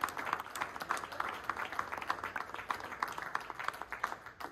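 A small audience clapping, many overlapping hand claps that thin out and fade near the end.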